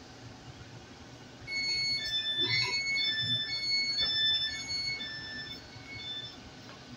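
A Class 800 IET train's door warning sounds a run of alternating high and low electronic beeps for about four seconds, starting about a second and a half in, as the doors work at the platform.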